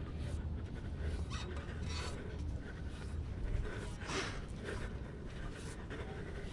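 A climber's heavy breathing from the exertion of climbing a steel tower ladder, in uneven noisy breaths over a steady low rumble.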